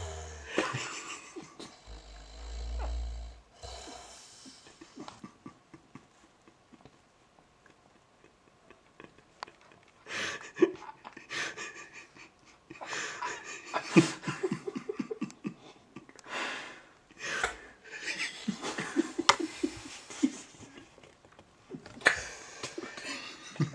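A sleeping man snoring with his nostrils pinched shut, so he has to breathe through his mouth. The snores come in rattling runs with quiet gaps between them, and a few sharp snorting breaths.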